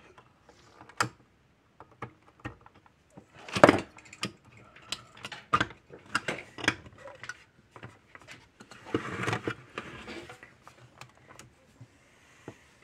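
Hands working parts of an electric fence energizer back into place: an irregular run of clicks, knocks and scrapes, with a louder clatter about four seconds in and a longer scraping rustle around nine seconds.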